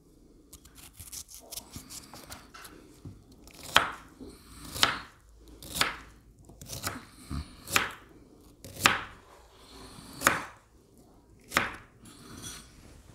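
Knife chopping radish into small pieces on a wooden cutting board: faint cutting noises at first, then about eight crisp knife strikes on the board, roughly one a second.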